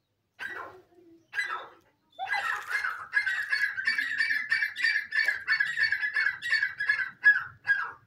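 Grey francolin (gora teetar) calling: two short calls, then from about two seconds in a long run of rapidly repeated notes, about four a second.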